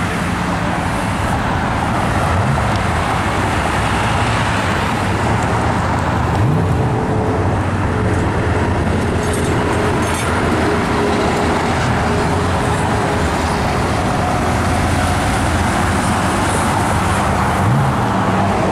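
Steady road traffic: car engines and tyres passing on a busy multi-lane road. A rising engine note is heard a few times as cars pull away and speed up.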